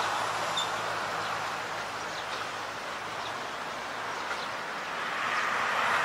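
Steady hiss of passing road traffic that eases in the middle and swells again near the end, with a few faint high bird chirps.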